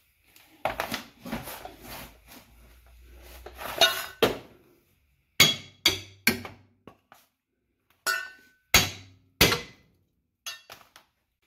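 Hammer blows on the steel rear spring plate of a 1974 Volkswagen Beetle's torsion-bar suspension, knocking it off its ledge: a dozen or so irregular metallic clinks and knocks, each with a short ring.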